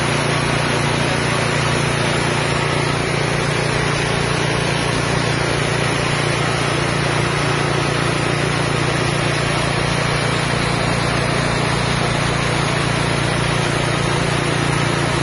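Engine-driven mini rice mill running while milling paddy: a steady, loud drone from its small 6.5 hp engine, with the whir of grain passing through the huller.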